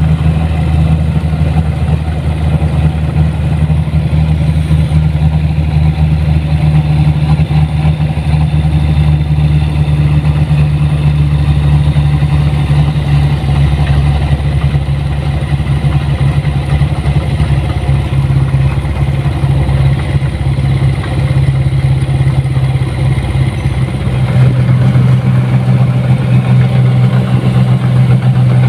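Rice combine harvester (a 1550 model) travelling along a lane, its diesel engine running with a steady low hum and some rattle from the machine; about three-quarters of the way through the engine note shifts and gets a little louder.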